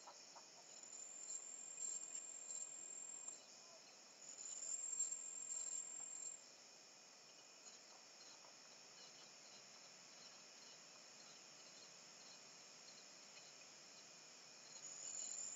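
Faint, high-pitched trilling of insects. It is louder in two stretches of a few seconds in the first half, settles to a steady low level, and swells again near the end.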